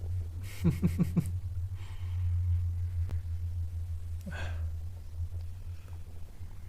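A man's stomach growling: a quick run of four gurgles about a second in, over a steady low hum, then one short gurgle a little past four seconds.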